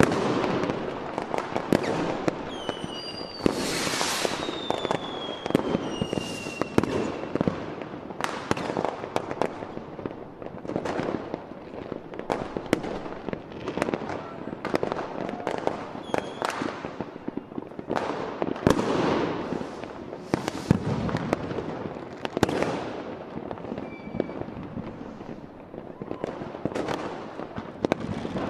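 Fireworks display: aerial shells bursting in a rapid, irregular series of bangs, with a couple of whistles falling in pitch between about three and six seconds in.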